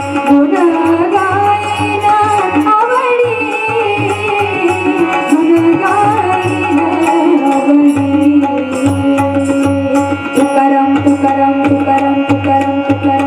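Marathi devotional abhang bhajan: a woman's voice sings a gliding melody over a steady held drone and hand-drum accompaniment. About seven seconds in, the voice drops out and the drone and drum strokes carry on alone.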